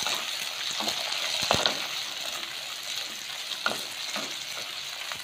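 Shallots and garlic sizzling in hot oil in a clay pot, stirred with a wooden spatula that knocks and scrapes against the pot a few times over the steady frying hiss.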